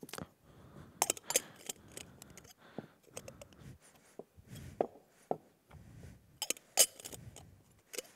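Metal magician's cups clinking and knocking as they are handled, nested together and set down on a felt-covered table: a string of sharp, irregular clicks with soft handling rustle between them.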